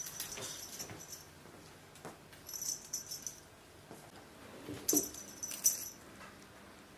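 Light metallic jingling in three short bursts, a couple of seconds apart, with a soft thump during the last one.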